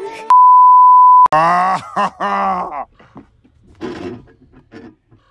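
A loud censor bleep, one steady high tone lasting about a second that cuts off suddenly, followed by a man's drawn-out groaning voice.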